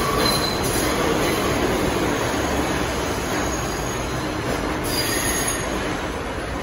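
New York City Subway R142-family train running along the far track, its wheels rumbling on the rails with faint squeals. The noise slowly fades.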